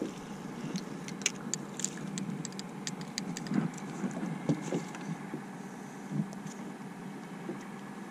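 A small perch reeled in on a spinning rod and lifted into the boat by hand: scattered light clicks from the reel and line, then a few soft knocks as the fish comes aboard and is handled, over a steady low hum.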